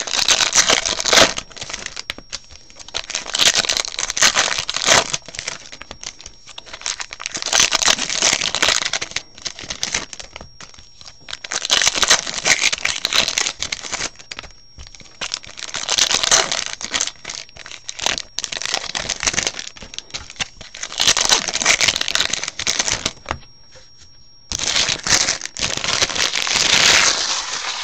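Foil wrappers of 2015 Bowman Draft baseball card packs crinkling and tearing as the packs are ripped open and handled, in about eight bursts a few seconds apart.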